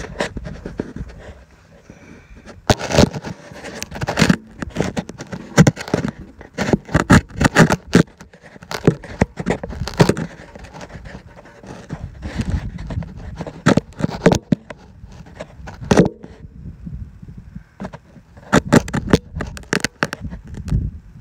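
Irregular scraping, rubbing and knocking close to the microphone: handling noise as the phone is moved about and propped into place.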